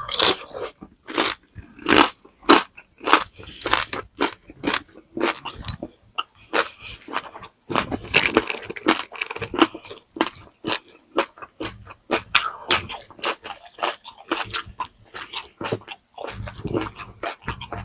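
Close-miked eating of crispy pata, deep-fried pork knuckle: rapid, irregular crunching and crackling as the crisp skin is bitten and chewed, with brief pauses between mouthfuls.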